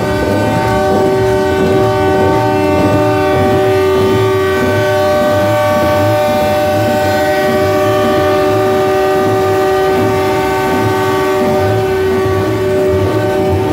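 Truck air horn blowing one long chord of several notes, held steady without a break, over a low rumble.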